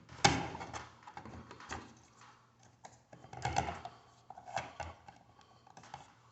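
Irregular clicks, taps and rattles of a smoke detector's plastic parts and mounting hardware being handled during replacement. They come in small clusters, the loudest about a third of a second in.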